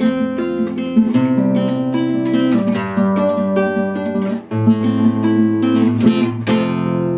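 Nylon-string classical guitar fingerpicked in an eight-pluck arpeggio pattern: a bass string, then the third, second, third, first, third, second and third strings. It is played at a quick, even tempo, with the chord and bass note changing about every second and a half.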